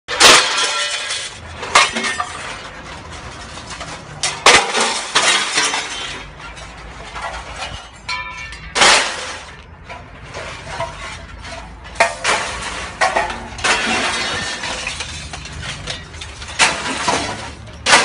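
Scrap sheet metal crunching, cracking and clanking in a 250-ton hydraulic metal baler. Sharp loud cracks come every few seconds over continuous grinding crunches, with a steady low hum underneath.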